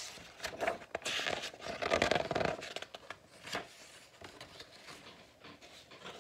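Pages of a picture book being turned and pressed flat: paper rustling and scraping, loudest about two seconds in.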